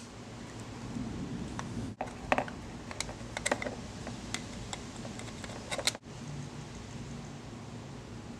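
Scattered light clicks and taps of small parts and hand tools being handled, in irregular clusters, over a low steady hum.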